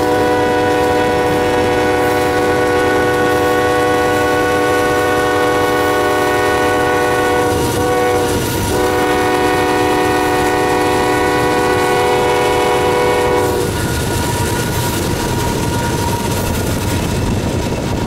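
Norfolk Southern diesel freight locomotive's multi-chime air horn blowing: one long blast, a brief break about eight seconds in, then a second long blast that stops about thirteen and a half seconds in, sounded for a grade crossing. Under it runs the steady rumble and clatter of the passing train.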